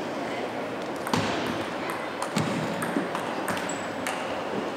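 Table tennis rally: the ball ticking sharply off the bats and the table, a click roughly every half second from about a second in.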